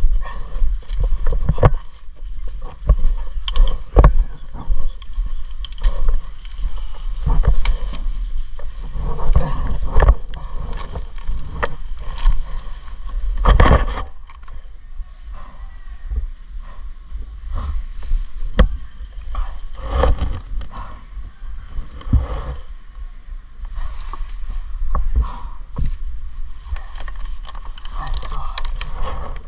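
Irregular sharp clicks and knocks, a few of them loud, over a steady low rumble like wind and handling noise on a moving body-worn microphone. This fits an airsoft player moving through the field with gear rattling.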